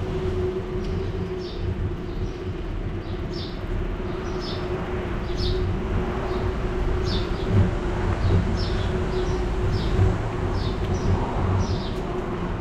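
Low rumble of a bicycle riding along a street, with a faint steady hum and short high chirps repeating about once or twice a second.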